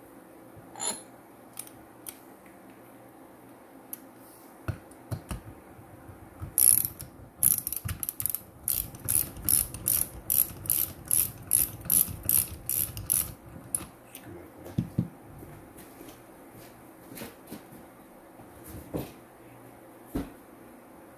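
Socket ratchet wrench clicking in quick strokes, two or three clicks a second for several seconds from about six seconds in, with a few scattered clicks and knocks around it, as bolts are tightened down on a homemade valve spring compressor fitted to an aluminum LS cylinder head.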